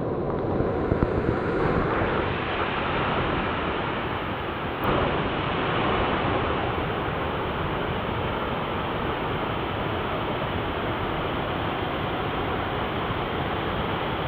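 Small waterfall with little water in it, falling steadily with a constant, even rushing of water. A single short tick sounds about five seconds in.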